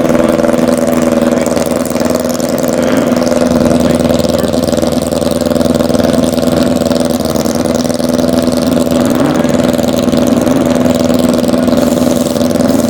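A car engine running steadily at one unchanging, fairly high pitch, without revving.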